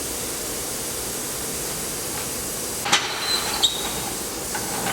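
Steady background hiss, then about three seconds in a sharp metallic clink with a brief high ringing tone, and a second clink just after: metal tools and parts knocking together.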